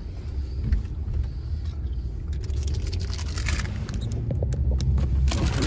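Steady low rumble of a moving car heard from inside the cabin. From a couple of seconds in, a plastic bag crinkles and rustles as it is handled.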